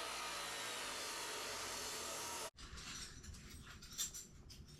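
A power tool cutting steel strips, giving a steady, even hiss that stops abruptly about two and a half seconds in. After that come quieter handling noises with a few light clicks.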